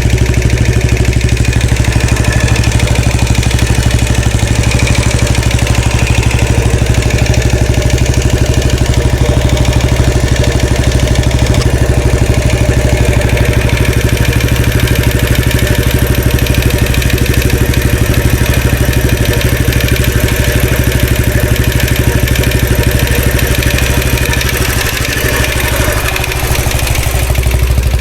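2013 Royal Enfield Classic 500's air-cooled single-cylinder engine idling steadily, with the oscillating rattling noise the owner is trying to trace; the level dips briefly near the end.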